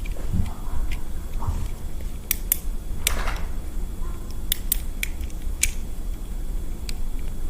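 Small plastic fidget toys being handled: a series of irregular sharp clicks and taps, with a brief rustle about three seconds in, over a low steady background rumble.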